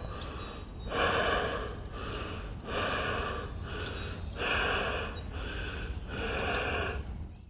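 A person breathing heavily and rhythmically, with a breath about every second, alternating stronger and weaker, over a steady low rumble.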